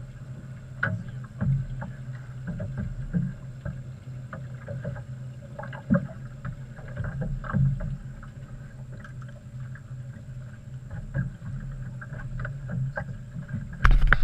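Small fishing boat on calm water: a steady low hum with irregular light knocks and clicks from gear and the hull, ending in a loud thump.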